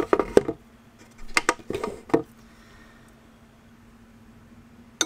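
Knocks and clatter of a Taylor digital kitchen scale being handled on a table and its buttons pressed, in two short bouts, with a faint steady hum underneath. Near the end, two light clicks as the small titanium folding knife is set on the scale's metal platform.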